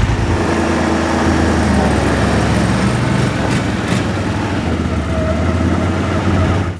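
A motor vehicle's engine running steadily, a low hum under a wide rushing noise.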